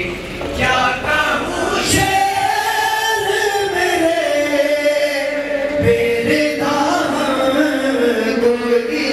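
Voices chanting a slow mourning lament (nauha), long held notes sliding gradually down in pitch.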